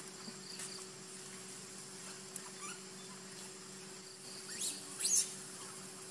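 Steady outdoor background hum and hiss, broken near the end by two quick high squeaks that rise sharply in pitch, about half a second apart.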